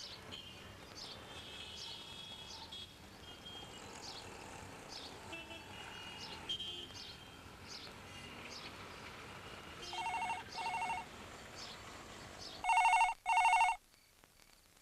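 Small birds chirping for the first ten seconds. Then a landline telephone rings in double rings: a faint pair about ten seconds in, and a much louder pair near the end.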